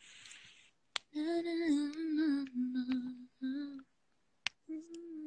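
A woman humming a tune with her mouth closed, in two phrases with a short break between them. Two sharp clicks, one about a second in and one near the end.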